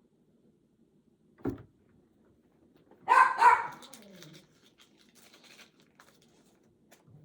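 Dog barking indoors: two quick barks about three seconds in. A single short low thump comes about a second and a half in.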